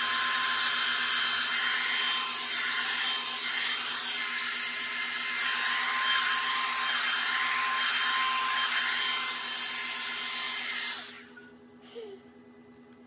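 Revlon One-Step Hair Dryer and Volumizer hot air brush (1100 W) running: steady rushing air with a high motor whine, likely on its cool setting, switched off about eleven seconds in. A faint click follows about a second later.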